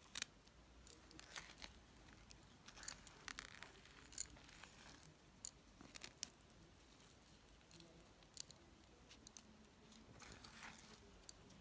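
Faint, scattered scrapes and soft clicks of a metal ice-cream scoop digging into ice cream in a plastic tub and pressing it onto a wafer cone.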